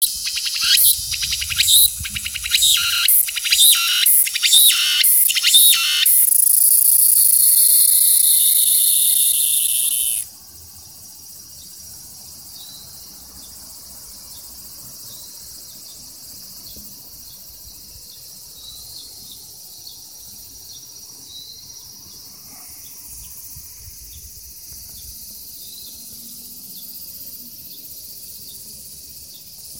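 Tsukutsuku-bōshi cicada (Meimuna opalifera) singing at close range: a rapid run of rhythmic high-pitched pulses, about three a second, that runs into a steady high buzz and cuts off suddenly about ten seconds in. After that only a faint high hiss remains.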